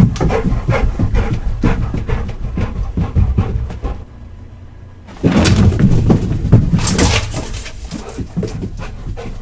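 A dog running, with quick paw footfalls and panting. The sound drops away for about a second midway, then returns loudly.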